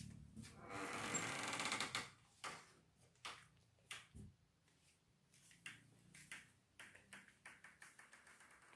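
A quick rattling clatter about a second in, followed by light, irregular clicks and taps, a few a second.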